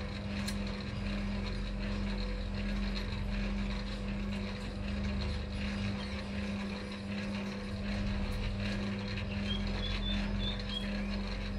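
Steady low mechanical hum, as of a motor running, over a low rumble, with a few short high chirps near the end, like birds.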